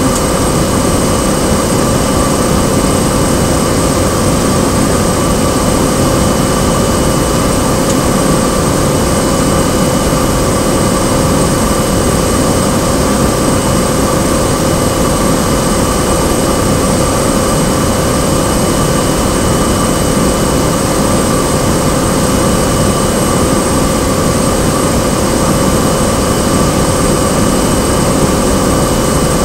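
Cessna 208 Grand Caravan's Pratt & Whitney PT6A turboprop engine and propeller heard from inside the cabin: a loud, steady drone with a constant whine through it, held at even power on the landing approach.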